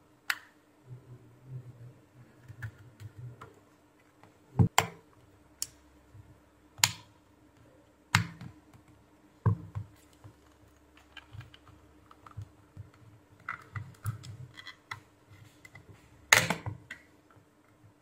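Plastic opening picks prying round the edge of an Infinix phone's housing: a series of sharp plastic clicks at irregular intervals as the retaining clips snap loose, with softer scraping between. The loudest click comes near the end.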